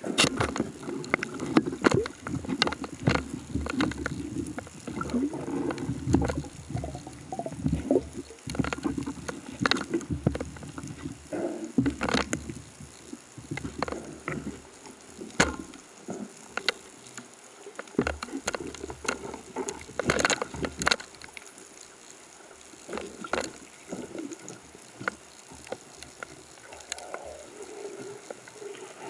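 Underwater sound picked up through a camera housing on a band-powered speargun: water rushing past as it moves, heavier during the first several seconds, with many scattered sharp clicks and knocks.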